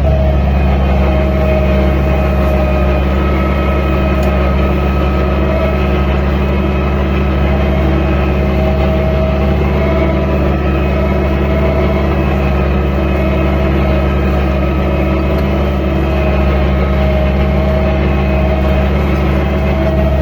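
Landini 10000 tractor's diesel engine running steadily while pulling a three-furrow plough, with a high whine over the even engine note that rises and falls slightly.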